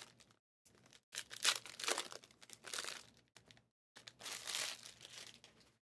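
Trading-card packs and their wrappers crinkling and rustling as they are handled, in three separate bursts.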